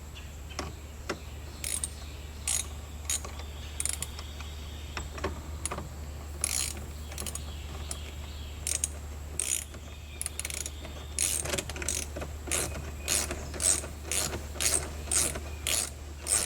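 Ratchet wrench working a bolt on a seatbelt shoulder anchor: short raspy bursts of clicking from each back-swing. The bursts are scattered at first and come about two a second in the second half.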